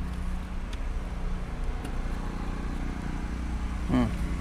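Lawn mower engine running at a steady drone in the background, with a few faint clicks of a plastic clip and cable being handled.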